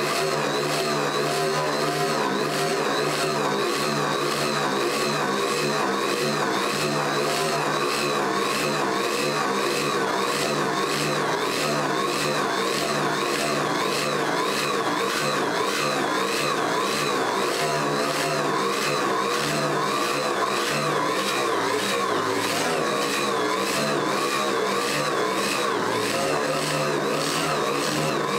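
Handheld power sander with a stripping disc, running continuously against a steel car fender to strip old primer and filler down to bare metal. Its pitch wavers a little as it is pressed and moved over the panel.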